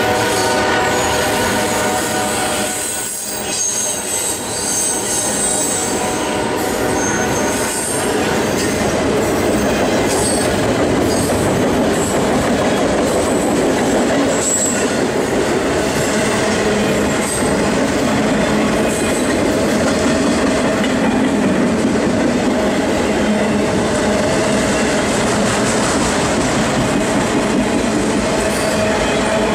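Autorack freight cars rolling past at speed: a steady rumble and clatter of steel wheels on the rails, with brief high wheel squeals here and there. A train horn trails off in the first few seconds.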